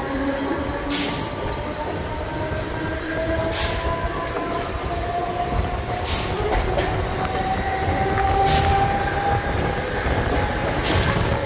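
Mumbai suburban electric local train running at speed, heard from its open doorway: a steady rumble of wheels on rails, with motor whines that slowly rise in pitch. A short hiss comes about every two and a half seconds.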